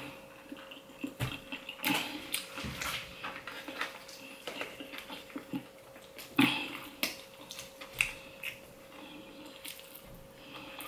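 Eating sounds of a person chewing battered fried flounder, with scattered sharp clicks and scrapes of a metal fork in a foil tray, under a faint steady hum.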